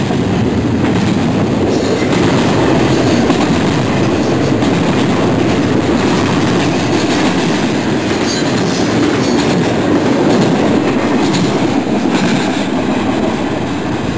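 Double-stack intermodal container train rolling past close by: a loud, steady rumble of its well cars' steel wheels running on the rails.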